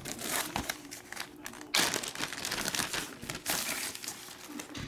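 Thin glossy red plastic sheeting being lifted and handled, crinkling and rustling, with a sharper, louder crackle about two seconds in.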